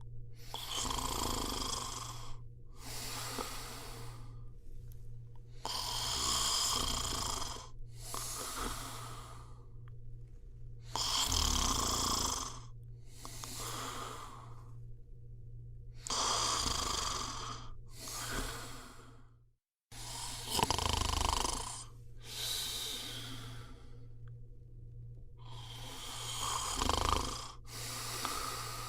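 A person snoring in deep sleep, about a dozen rasping breaths that come one every two to three seconds over a steady low hum. The sound cuts out completely for a moment about twenty seconds in.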